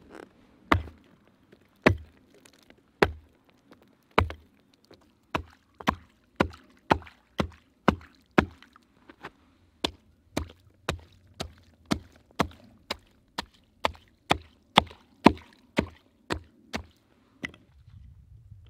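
Hatchet chopping in a long series of sharp blows: the first few come about a second apart, then they speed up to about two a second before stopping near the end.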